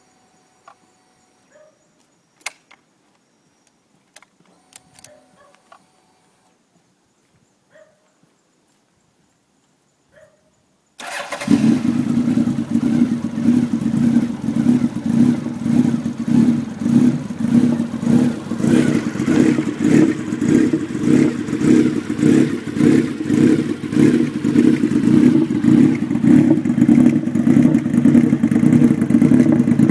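A few faint clicks, then about eleven seconds in a Honda CB1300 Super Four's inline-four engine, breathing through a Nojima PRO Titan titanium exhaust with a short silencer, fires up abruptly and settles into a loud, steady idle with a rapid, even pulse.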